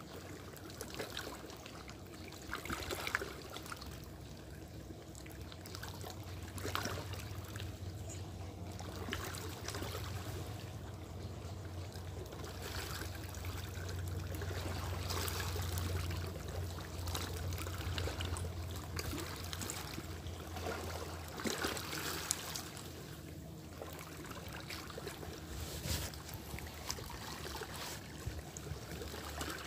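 Small waves lapping and splashing against a rocky shoreline in uneven surges. A low steady hum runs underneath from about six seconds in until about twenty seconds in.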